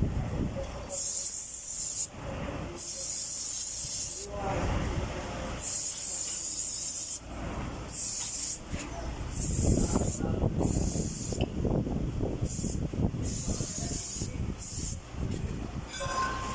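Pressurised spray hissing in about a dozen short blasts, on and off, onto brake drum and shoe parts being cleaned and dried. A low rattling clatter runs under it, strongest in the second half.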